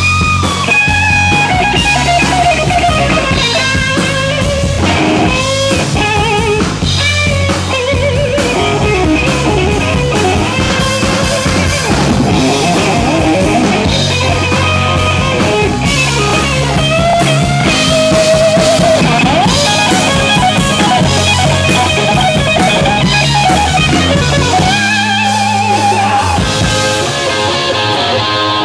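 Live rock band playing loud: electric guitar carrying wavy, bending lead lines over a drum kit and bass.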